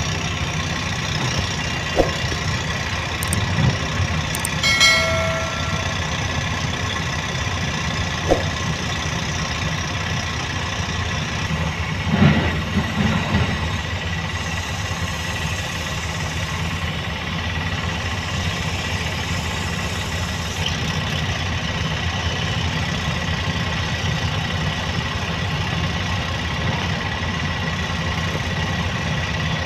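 Heavy diesel machinery running steadily: a tracked JCB excavator working beside idling tipper trucks. A few knocks sound over the hum, then a short beep-like tone about five seconds in and a louder clatter about twelve seconds in.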